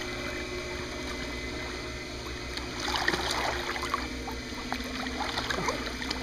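Pool water sloshing and splashing around a child swimming underwater, close to the microphone, over a steady low hum. The splashing grows busier about three seconds in.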